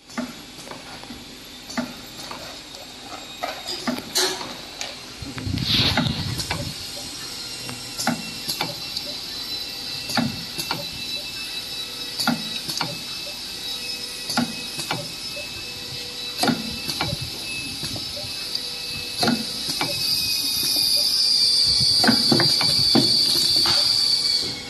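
Peristaltic-pump glue filling machine running: sharp clicks and knocks recur about every two seconds over a steady high hiss, and the hiss grows louder near the end.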